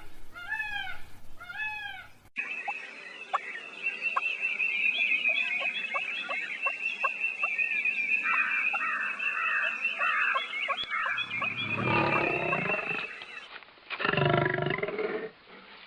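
Wild animal sound effects spliced together. It opens with a few repeated arching calls. Then comes a long stretch of a steady high drone laced with short sharp chirps, and near the end two loud, deep roars.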